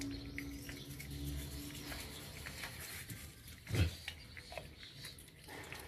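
A Rottweiler's teeth being brushed: soft wet clicks of licking and of the toothbrush on its teeth, with a steady low hum in the first second and a half and one louder low sound about four seconds in.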